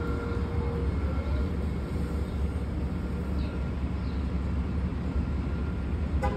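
Steady low rumble of a vehicle engine in street traffic, with a faint high tone that fades out about a second in.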